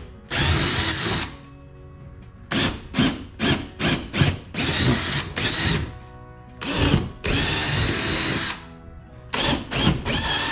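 Cordless drill boring holes through the carpeted boat seat platform. It goes in short trigger blips that start each hole, then steady runs of about a second each, several times over.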